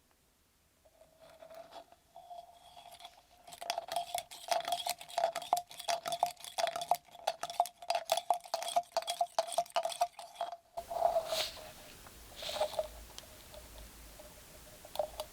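Rapid, irregular metallic clicking and clinking of small metal parts for about seven seconds, then a few scattered clicks, over a faint steady tone.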